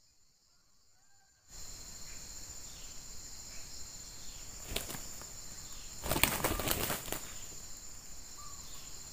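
Wings of red junglefowl roosters flapping as a wild rooster fights the decoy rooster: one short flurry about five seconds in and a longer one from about six to seven seconds, over a steady high-pitched hum that starts a second and a half in.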